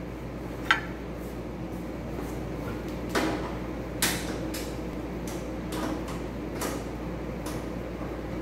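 A few scattered sharp clicks and knocks of small handling noises over a steady low hum. The car's engine is not running.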